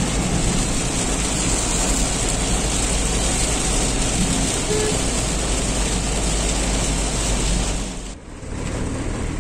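Heavy rain hitting a moving car's roof and windscreen together with tyre and road noise, heard from inside the cabin. A dense, even rush over a low rumble that drops away sharply about eight seconds in.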